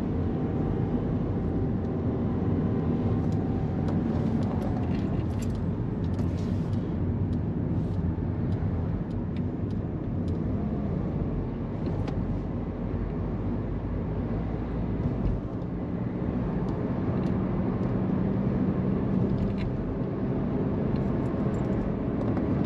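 Car cabin road noise while driving: a steady low rumble of tyres and engine, with a faint steady hum.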